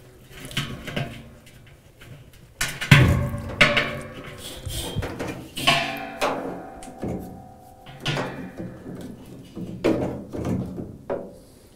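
Irregular metallic clanks and knocks of hand tools and parts against a metal washing-machine tub and frame, some with a short ring, the loudest about three seconds in.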